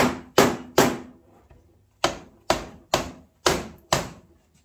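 Rubber mallet striking the aluminium crankcase of a 1989 Suzuki LT250R two-stroke engine, nine blows: three about 0.4 s apart, a pause of about a second, then six more at about two a second. The case halves are not splitting because a bolt has been left in.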